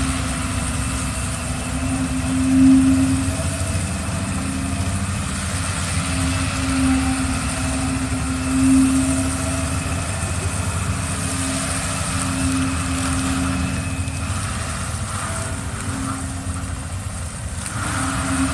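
A machine's engine running steadily, its hum swelling and easing every few seconds.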